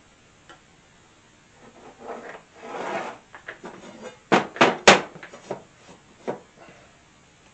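Workshop handling noise: a scraping slide lasting about a second and a half, then three sharp knocks in quick succession and a few lighter clacks.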